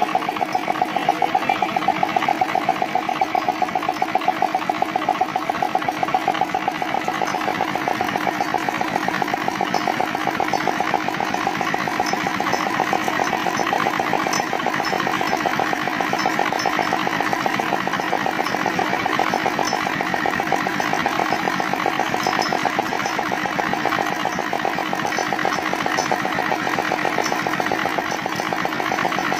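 Dongfeng R175A single-cylinder diesel engine running steadily after an overhaul, with a fast, even pulse of firing strokes.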